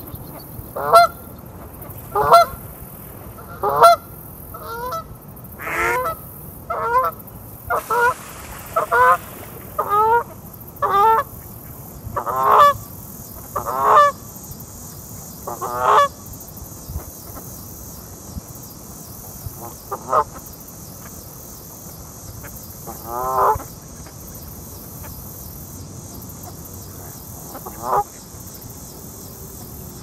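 Canada goose honking: a run of about a dozen honks roughly one a second, then three more spaced several seconds apart.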